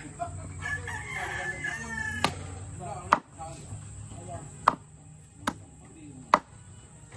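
Machete chopping raw fish into pieces on a wooden log chopping block: about five sharp strikes, irregularly spaced.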